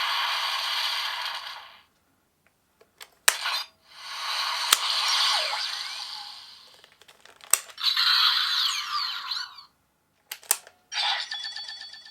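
CSM Lockseed toys playing electronic sound effects through their small speakers, in four short bursts. Sharp clicks of the lock mechanism sound between the bursts.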